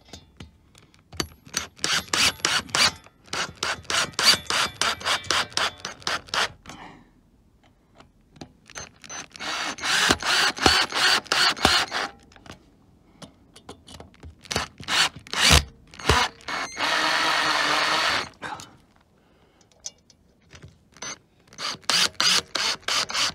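Cordless drill-driver with a hex socket tightening bolts through a steel wall plate, in several bursts of rapid, even clicking, about seven a second, as its clutch slips on the tightened bolts. There is one steadier run of the drill of about a second and a half a little past the middle.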